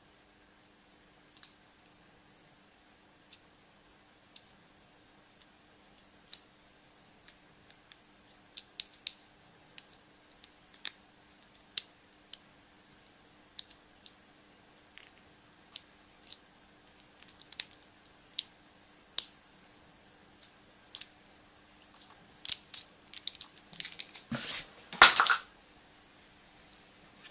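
Hands handling surprise eggs and their small plastic toys: scattered small clicks and taps, then a short burst of wrapper crinkling near the end.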